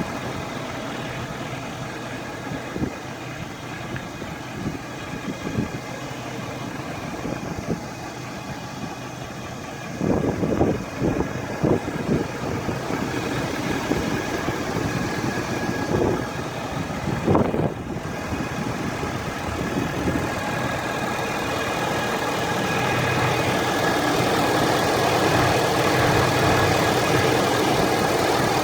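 Ford F-350 diesel engine idling, with a steady high-pitched whine running over it that only appears once the engine and transmission are fully warmed up; the owner places it at the top of the engine, near a black box on the driver's side or centre, while dealers blame the transmission. A few short bumps come in the middle, and the sound grows louder over the last several seconds.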